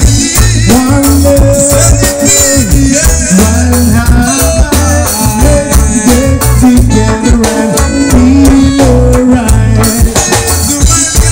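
Live band playing a song loudly: electric guitar over a drum kit, with a steady heavy low end and a melody line that slides between held notes.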